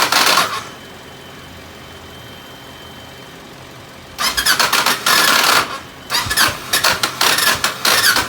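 Starter of a 2007 Kawasaki Ninja 650R grinding in harsh, rapid-clicking bursts as the starter button is pressed, without the engine catching: one burst ends about half a second in, then repeated bursts follow from about four seconds in. A grinding sound that, in the owner's words, it shouldn't make.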